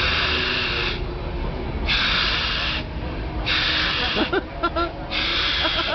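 Forceful breathing by a man inflating a condom stretched over his head: long hissing breaths, about one every second and a half to two seconds.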